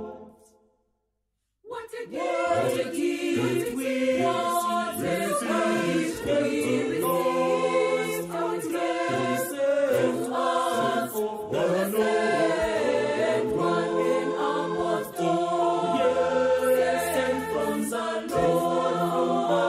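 Mixed choir of men's and women's voices singing a gospel praise song in harmony. The sound drops out for about a second and a half near the start, then the choir comes back in at full strength.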